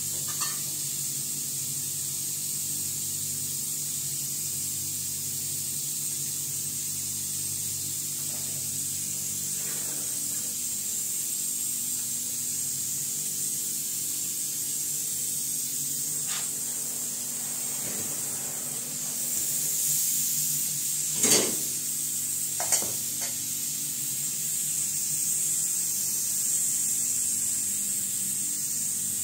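Steady hiss over a low hum, with two sharp knocks about a second and a half apart past the middle.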